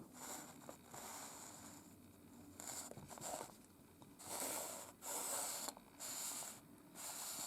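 Faint scraping and rubbing in a series of short strokes, several in the second half, as the figure and its parts are handled.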